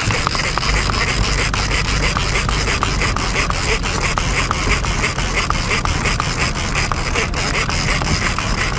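Fishing reel under load from a hooked salmon: a dense, rapid ratchet-like clicking and rasping as line is pulled off against the drag.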